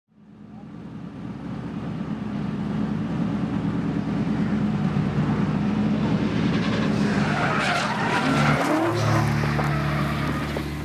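Drift car engine running with tyres skidding, fading in from silence over the first couple of seconds. Wavering, squealing tyre noise grows about seven seconds in.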